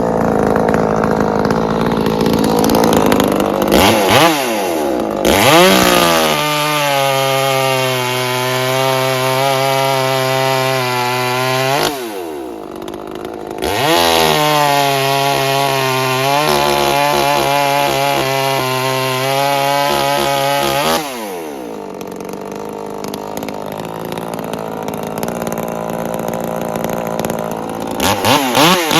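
Two-stroke chainsaw revved to full throttle and held steady for several seconds, twice, dropping back to idle in between, with a brief rev again near the end.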